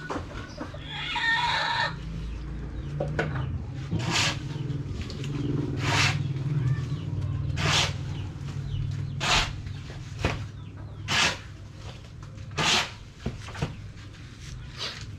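A rooster crows once near the start, over a steady low hum. This is followed by a series of short, sharp scraping strikes that come about every one and a half to two seconds.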